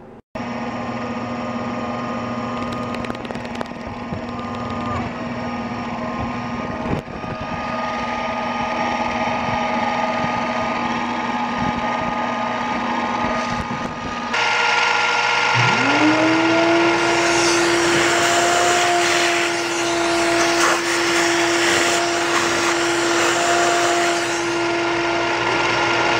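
A benchtop milling machine cutting an aluminium block with an end mill, its motor running steadily under the cut. About halfway through, the spindle spins up with a short rising whine that settles into a steady tone, as the end mill plunges into the block to counterbore a bolt hole.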